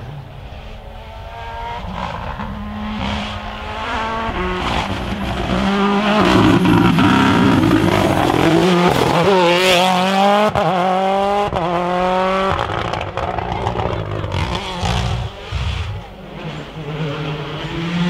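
A Mini John Cooper Works WRC rally car with a turbocharged 1.6-litre four-cylinder engine, driven flat out. It grows louder as it approaches, revs climbing and dropping through several quick upshifts in a row, then it pulls away.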